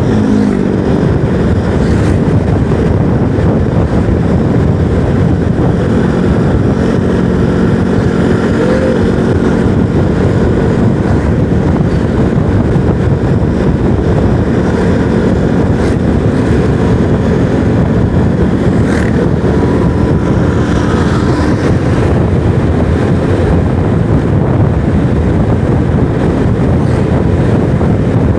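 Motorcycle riding along: steady wind rush on the rider's microphone mixed with engine and road noise, with a low engine hum that fades in and out.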